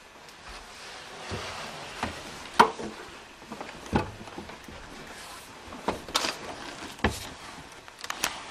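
Scattered wooden knocks and clunks in a small room, about a dozen single strikes at uneven intervals over a faint background hiss.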